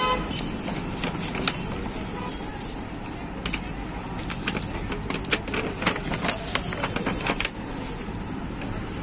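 Steady street-traffic rumble. From about two and a half to seven and a half seconds in there is a run of sharp crackles and clicks as sticker sheets are handled on a glass counter.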